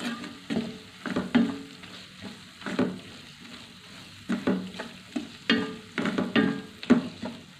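Wooden spatula scraping and stirring a thick onion, tomato and capsicum masala around a stainless steel kadai, in repeated strokes about two a second with a short pause midway, over a low sizzle of the masala frying in oil. The masala is being sautéed until the raw smell of the spices cooks off.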